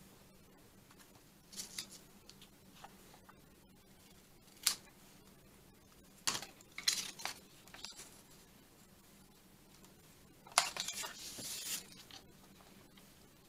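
Small pointed craft scissors snipping paper in a few quick cuts, among the light sounds of paper being picked up and shifted on a cutting mat. Near the end there is a longer rustle of paper.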